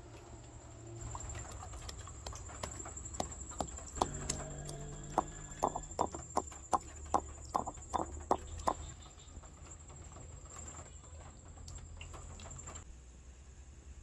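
Stone pestle pounding dried shrimp in a stone mortar: a run of sharp knocks, about two to three a second, loudest past the middle, that stops about two-thirds of the way through.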